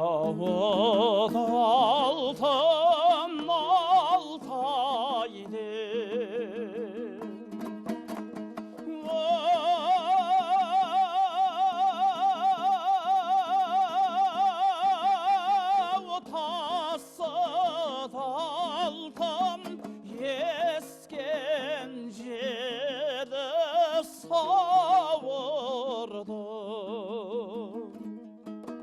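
Kazakh folk music: plucked strings over a steady low drone, with a long wavering melody note held through the middle.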